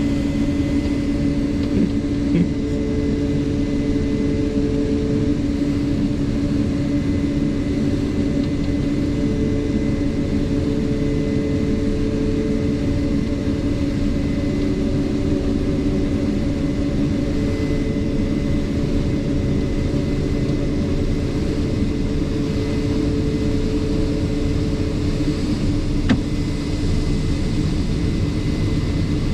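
Combine running steadily while harvesting corn, heard from inside the cab: a constant engine and machinery drone with a steady hum. A second, higher tone comes and goes every few seconds.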